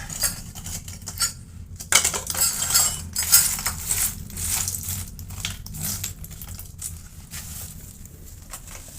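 Quick, irregular clinking and clattering of small hard objects, busiest in the middle of the stretch, over a steady low hum.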